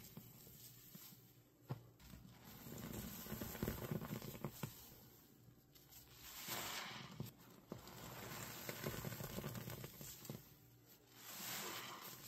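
Foam-soaked kitchen sponges squeezed and kneaded by hand in a sink of hot soapy water, squelching with a fine crackle of bursting suds. Two short hissing rushes, about six and eleven seconds in, sound like water running out of the sponge back into the sink.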